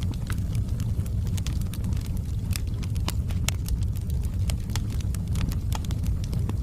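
Wood fire burning in a fireplace: a steady low rumble of the flames with frequent sharp crackles and pops from the burning logs, several a second.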